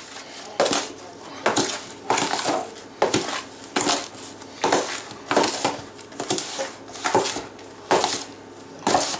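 Metal spoon stirring and scraping through a dry mix of ground almonds and breadcrumbs in a plastic tub: a repeated gritty scrape about every three-quarters of a second.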